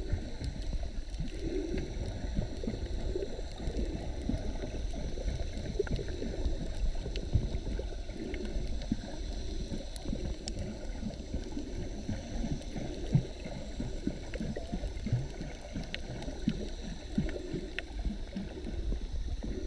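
Muffled underwater gurgling and sloshing of water around a submerged camera, with scattered faint clicks.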